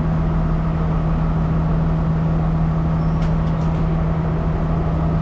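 Stationary diesel train's engine running at a constant speed, a loud steady hum with a low drone and fainter higher tones. A few faint ticks come about three seconds in.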